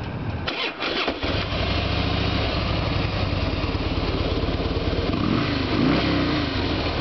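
2006 Harley-Davidson Softail Springer Classic's fuel-injected Twin Cam 88B V-twin started on the electric starter: a brief crank about half a second in, catching within a second, then idling steadily through dual fishtail exhaust pipes. The engine speed rises a little about five seconds in.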